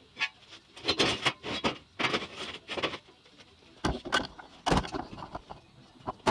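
Handling noise: irregular knocks and scrapes as a welded steel box-section frame is picked up off a concrete floor and set on a workbench, mixed with the camera being moved. The sharpest, loudest knocks come about four and five seconds in.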